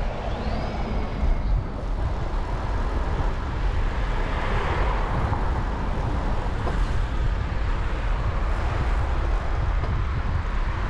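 Street traffic noise heard from a moving bicycle, with a steady low rumble of wind on the microphone; the traffic swells a little about four to five seconds in.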